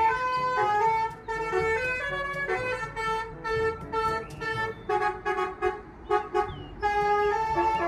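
Telolet bus horn, a multi-tone air horn, playing a tune of held notes that step from pitch to pitch every half second or so.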